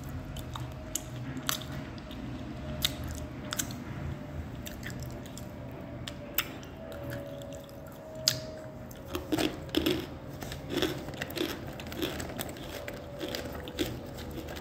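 Close-up biting and chewing of crunchy edible clay chunks: a string of sharp, irregular crunches.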